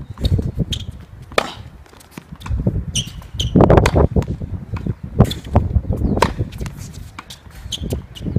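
Tennis balls being struck with rackets and bouncing on the court: a series of sharp, irregularly spaced pops over a low rumble.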